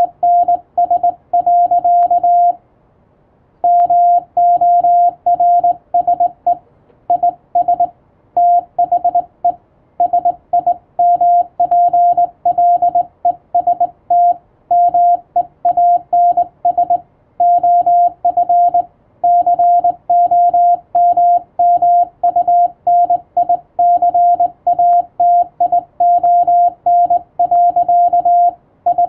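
Morse code (CW) sent as a single mid-pitched tone keyed on and off in quick dots and dashes, as heard from an amateur radio set, with one short pause about two and a half seconds in.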